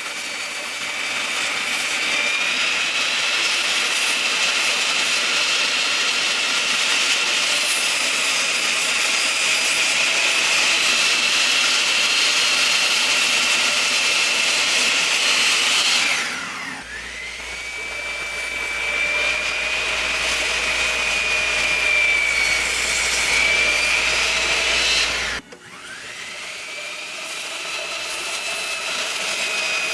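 Power saw cutting door frame material: a steady high motor whine with cutting noise. The whine drops away about halfway through and again near the end, each time spinning back up to speed.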